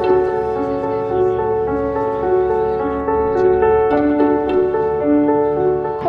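Background music with slow, held notes changing in steps.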